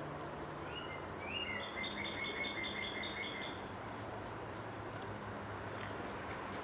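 Faint scattered clicks and rustles of dry, gritty soil being knocked off a plant's roots. A bird trills for about three seconds near the start.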